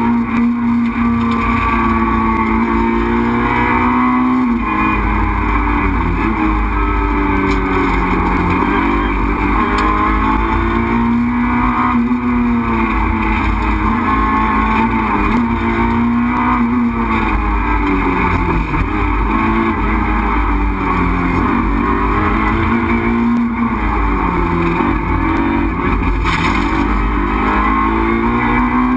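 Renault Clio 2 RS Group A rally car's four-cylinder engine at full stage pace, heard from inside the cabin, its revs rising and falling over and over as the car is driven hard through the stage.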